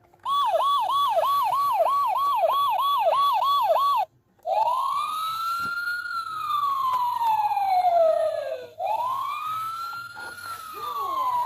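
Toy emergency vehicle's electronic siren: a fast yelp, about three sweeps a second for roughly four seconds, then after a brief break a slow wail rising and falling twice.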